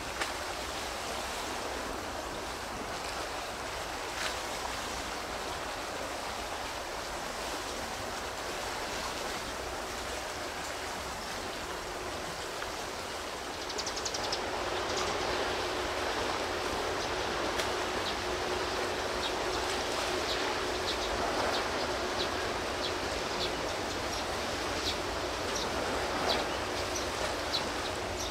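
Steady wash of wind and water noise by the sea, growing a little louder about halfway. A faint steady hum joins it then, and short high chirps or ticks come and go through the second half.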